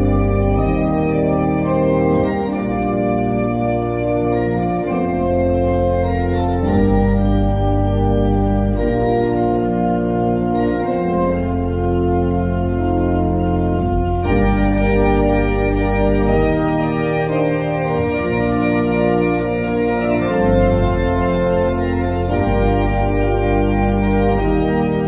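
Church organ playing held chords over pedal bass notes that change every second or two, at a steady volume.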